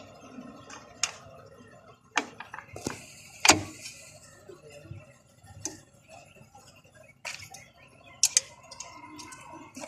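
Irregular metallic clicks and knocks of hand tools against drum-brake shoes and their return springs as the brake is reassembled, with one loud knock about three and a half seconds in.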